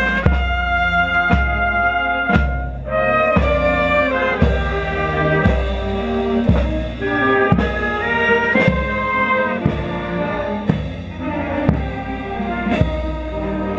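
Brass band playing a tune over a bass drum struck about once a second.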